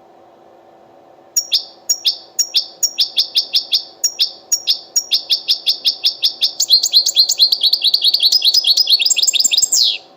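European goldfinch singing a long run of sharp, high repeated notes, the 'tit-tit' batbata phrase. The notes speed up partway through and end on a falling note.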